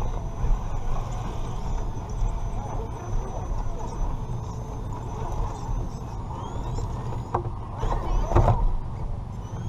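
Redcat Gen7 Pro RC rock crawler driving, heard from a GoPro mounted on it: a steady low rumble of motor, drivetrain and tyres on the course, with a few knocks and rattles about eight seconds in.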